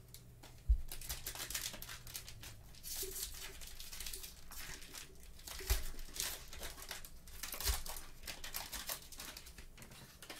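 A plastic trading-card pack wrapper is torn open and crinkled in gloved hands, crackling on and off. A few soft thuds come in between, around one and six and eight seconds in.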